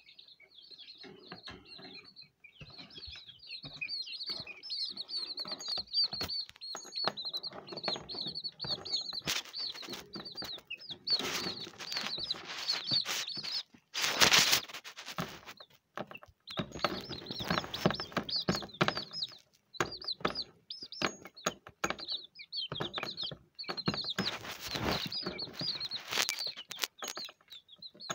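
Young chicks cheeping continually in high, rapid peeps. Louder bursts of scuffling noise come several times as they move about the cage and peck at the hanging mirror toy, the loudest about halfway through.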